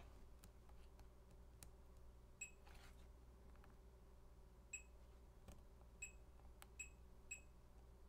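Fluke multimeter in diode-test mode giving five short, high beeps at uneven intervals as its probes are touched to the pins of a repaired LVDS display connector, with faint ticks of the probe tips between. The beeps are brief rather than one continuous tone, which on a Fluke in diode mode marks a normal junction reading and not a dead short.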